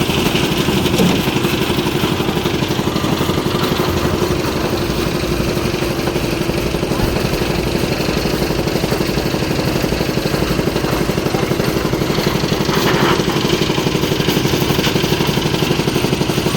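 Engine of a concrete lift machine running steadily at an even speed.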